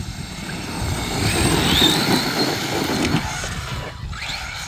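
CEN GST-E 1/8-scale electric monster truck, run on 4S LiPo, at full throttle: its electric motor and drivetrain whine and its tyres run over dirt. The sound builds with a brief rising whine about two seconds in, then falls away as the truck leaves the ramp and flies.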